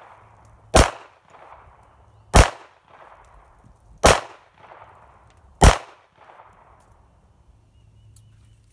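Four handgun shots fired at an even, deliberate pace about one and a half seconds apart, each followed by a fading echo.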